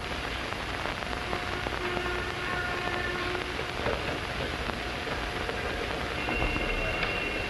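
Steady rain falling, an even hiss of rain on the windows and ledges outside.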